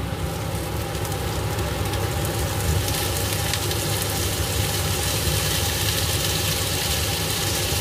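Stir-frying in a pan on a stove: a steady low rumble under a sizzling hiss that grows louder about three seconds in.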